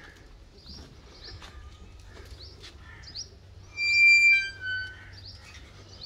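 Small birds chirping repeatedly, about two short high chirps a second. About four seconds in comes a loud, clear, high whistle held for about half a second, then a shorter, lower second note.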